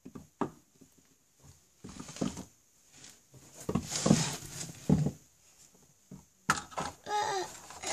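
Scattered knocks, taps and rustling as plastic toy horse figures are handled and moved about on a carpet, with the filming phone jostled in the hand; the loudest rustling comes about four and five seconds in.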